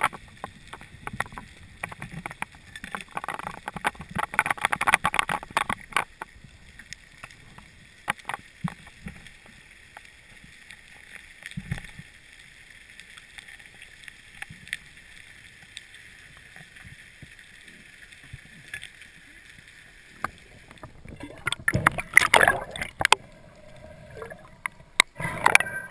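Underwater sound through a mask-mounted camera's housing: a steady hiss with dense crackling clicks and muffled water noise. Louder bursts of knocking and rubbing come in the first few seconds and again near the end, as the diver handles the speared fish.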